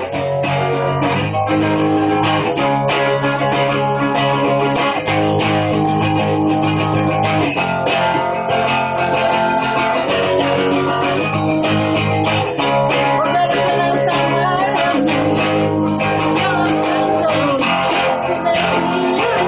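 Guitar music: plucked guitar notes over a bass line that changes every second or so.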